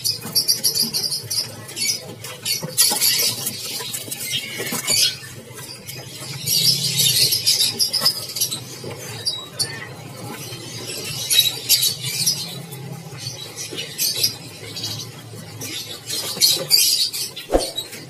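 High-pitched chirping and twittering of many small caged songbirds, over a low steady hum, with one sharp click near the end.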